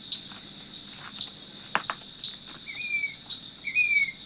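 An unidentified bird calling, a short note that slurs up and then falls, repeated about once a second from a little past halfway. Under it runs a steady high-pitched insect drone that pulses about once a second, with a few faint clicks.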